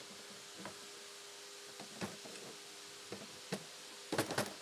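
Scattered light knocks and clicks over a steady hum and hiss, with a quick run of several louder knocks near the end.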